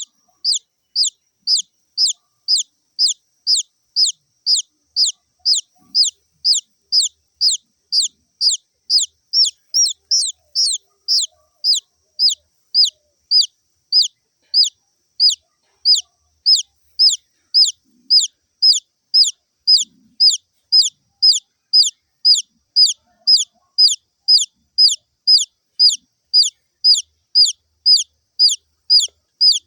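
A baby chick peeping steadily: short, high, downward-sliding peeps at an even pace of about two a second.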